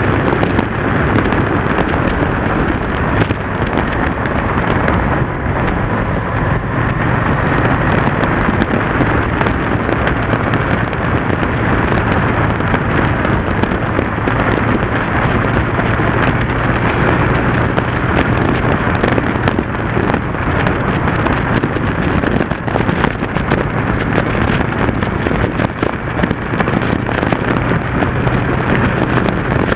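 Wind buffeting and crackling on a motorcycle-mounted action camera's microphone at road speed, over the steady low hum of a Yamaha TDM parallel-twin engine cruising at an even speed.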